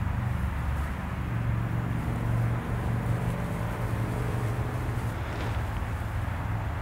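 Breath blown into a tinder bundle that holds a hand-drill friction-fire coal, coaxing the coal to spread and catch, over a low steady rumble.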